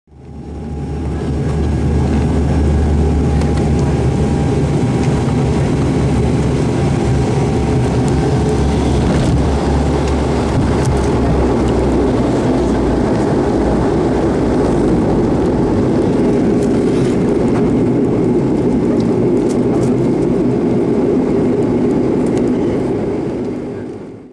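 Turboprop airliner's engines and propellers running during the landing roll, heard from inside the cabin: a loud steady rumble with a faint whine that weakens over the first half. The sound fades in at the start and fades out at the end.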